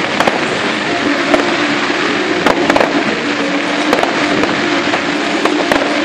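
Fireworks display: a dense, continuous noise of bursting fireworks with sharp bangs scattered through it, several coming close together about two and a half seconds in and again near the end.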